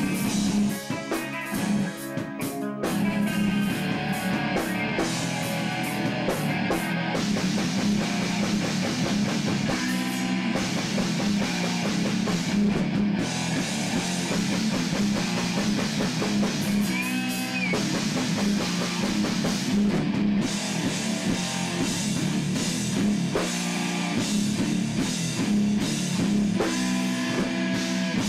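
Rock band playing live: electric guitars, bass guitar and a drum kit together in a steady, loud rock passage.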